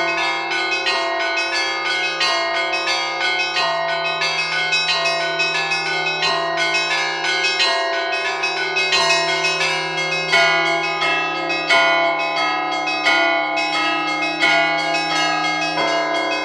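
Set of Danilov church bells rung in a continuous Russian Orthodox peal: quick strikes on the small bells, several a second, over the sustained hum of the larger bells.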